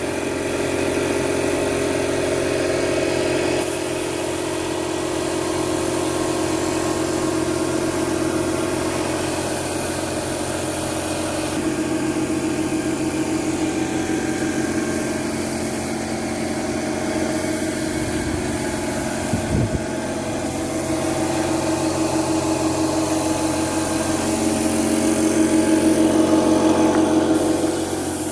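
A small engine running steadily at a constant speed, with a brief low rumble a little past the middle.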